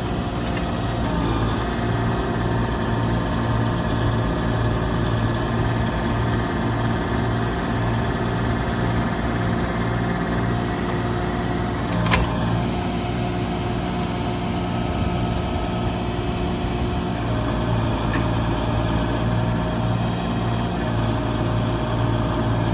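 Diesel engine of a log-loading machine running steadily, its pitch stepping slightly a few times as the load changes, with one sharp knock about twelve seconds in.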